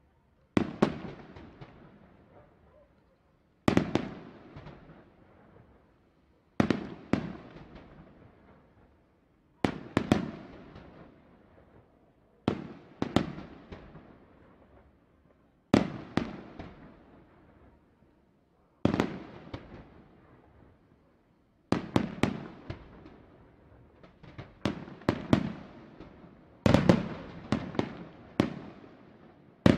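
Aerial fireworks shells bursting in a display: volleys of several sharp bangs about every three seconds, each dying away in a rumbling tail, the volleys coming faster near the end.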